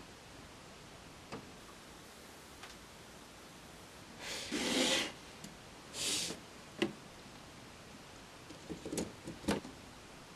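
Hand work on a small metal part: two short rasping strokes of a file or scraper, about halfway through, among a few sharp clicks.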